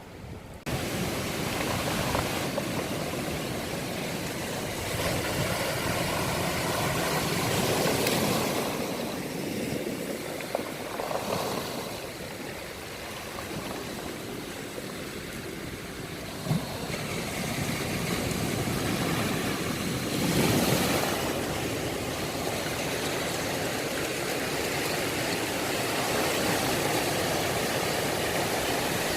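Sea surf on a beach: a steady rushing wash that swells and falls back, loudest about 8 seconds in and again about 20 seconds in.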